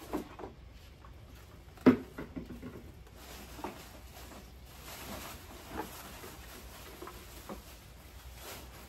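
Sporadic light knocks and taps, as of things being handled, the loudest about two seconds in, over a faint room background.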